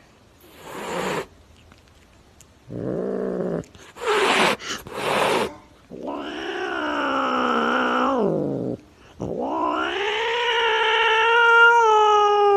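Domestic cat hissing and growling, then giving two long, wavering yowls. The first yowl drops off at its end, and the second rises and then holds.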